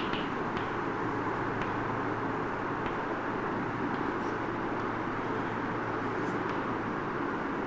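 Steady background noise with a low hum, over which come faint, scattered taps of chalk on a blackboard as writing goes on.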